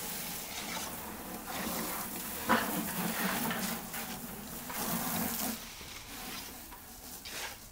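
A hand float scraping and swishing over the wet surface of a freshly poured concrete slab, with one sharp knock about two and a half seconds in.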